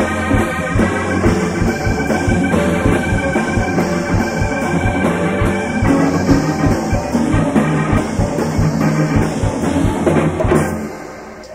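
Live band playing an instrumental jam: drum kit keeping a steady beat under bass, guitar and sustained keyboard chords. The band stops on a final hit about eleven seconds in.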